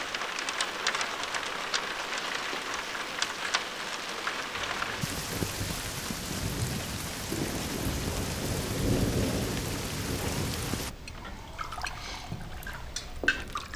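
Rain falling, with drops pattering and dripping. About five seconds in, it becomes a heavy, loud downpour with a low rolling thunder rumble. Near the end it falls back to softer rain with small clinks of cutlery on a plate.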